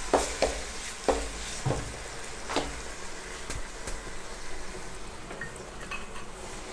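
Spiced masala with mashed potato and a little added water sizzling in a pan while it is stirred. A spoon knocks against the pan five or six times in the first three seconds, then a few fainter scrapes and ticks.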